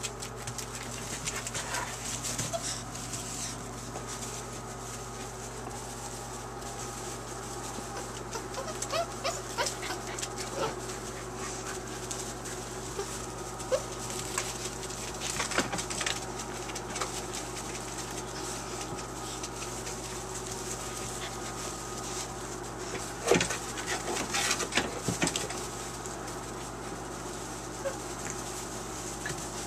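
Puppies scuffling and shuffling through wood-shaving bedding, with occasional short whimpers and sudden knocks, over a steady low hum.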